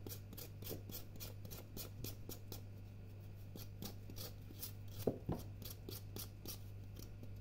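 Kitchen knife scraping the tough root of a kenger (Gundelia) thistle clean: a steady run of short, faint rasping strokes, several a second, with a couple of firmer strokes about five seconds in.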